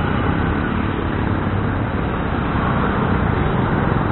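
Steady road noise from a moving Honda Dio scooter in city traffic: the scooter's engine running, mixed with wind and the surrounding traffic.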